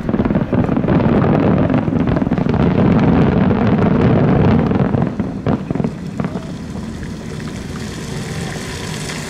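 Rolling rumble and echo from the burst of a giant four-shaku fireworks shell. It stays loud for about five seconds, with a few sharp cracks a little past halfway, then dies down to a low steady rumble.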